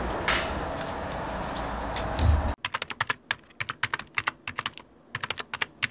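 Steady outdoor background noise with a low rumble and a brief low thump, then about two and a half seconds in it cuts off abruptly to a fast, irregular run of computer keyboard typing clicks.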